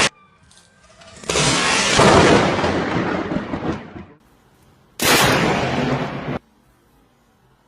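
Two loud thunderclaps from close lightning strikes: the first breaks about a second in and dies away over nearly three seconds, the second starts about five seconds in and cuts off abruptly after a second and a half.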